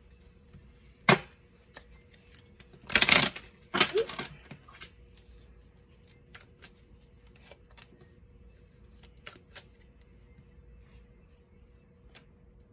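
Tarot cards being shuffled and handled by hand. A sharp snap comes about a second in, then the loudest part, a dense burst of card shuffling about three seconds in with a shorter one just after. Faint scattered taps and clicks of cards being laid down follow.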